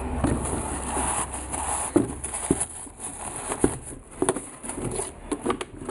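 Sneakers being handled and shifted about: irregular taps and knocks with rustling in between.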